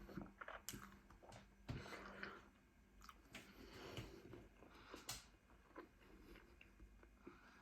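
Faint close-up chewing and biting of food, with irregular wet mouth noises and a few sharp clicks.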